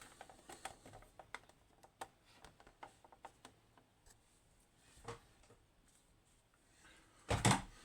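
Light clicks and taps of a small lock and metal tools being handled, irregular, with a louder clatter near the end.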